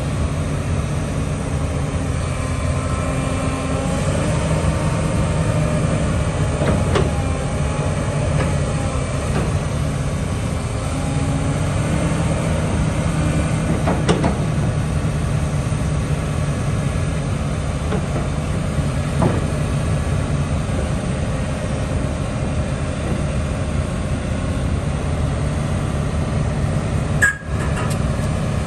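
Komatsu PC360NLC-10 excavator's six-cylinder diesel engine running steadily while the boom, arm and bucket are worked, with a pump whine that shifts in pitch and a few sharp knocks. The sound briefly drops out near the end.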